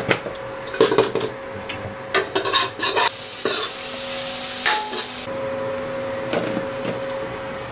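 Cumin seeds sizzling in hot oil in a steel kadai for a dal tadka, with a spoon clinking and knocking against the pan and spice jars. About three seconds in, the sizzle flares into a dense hiss for around two seconds, then stops abruptly.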